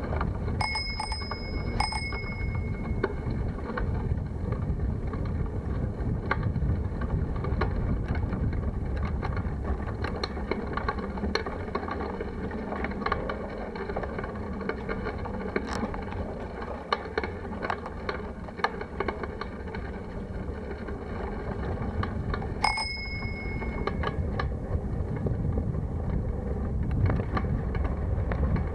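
Bicycle bell rung twice near the start and once more about 23 seconds in, each a bright ding that dies away. Under it, the steady rumble and wind noise of the bicycle riding along a rough lane, with frequent small rattles and knocks.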